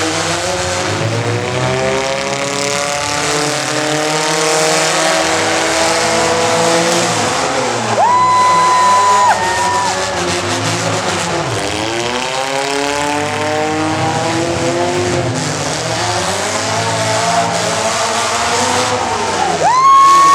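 A vehicle engine revs up, its pitch climbing over several seconds, and tires squeal briefly about eight seconds in. A second climb in engine pitch follows, and another short tire squeal comes right at the end.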